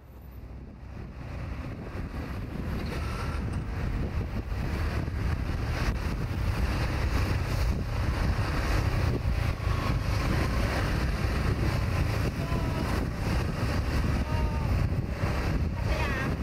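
Steady low rumble with wind buffeting the microphone, fading in over the first couple of seconds and then holding level.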